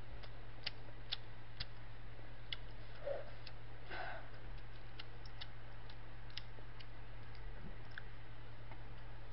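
Quiet room tone: a steady low hum with faint, irregular ticks and clicks scattered through it, and a brief soft sound about four seconds in.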